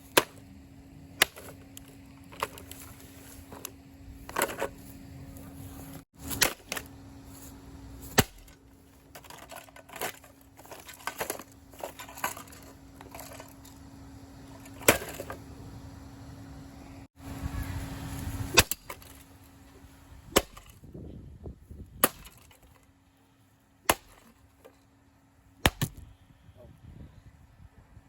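Vintage Hoover table fan being smashed: a string of sharp, loud hits and breaking cracks at irregular intervals, over a steady low hum that drops out about two-thirds of the way through.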